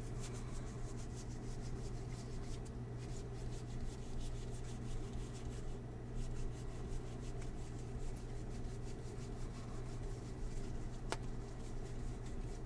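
Hands opening a box of Topps baseball card packs and handling the foil packs and cards, a steady soft rustling and crinkling. A low electrical hum runs underneath, and there is one sharp click near the end.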